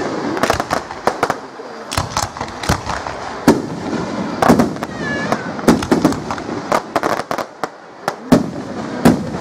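Aerial fireworks display: shells bursting in a rapid, irregular series of loud bangs, with crackling and rumble between them.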